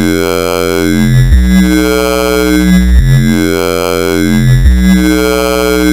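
Talking-bass patch from Ableton's Operator FM synthesizer, bit-crushed through a Redux effect, playing a looped bass line. It alternates between a low and a higher note about every one and a half seconds, with a vowel-like "yai, yao" sweep through its tone.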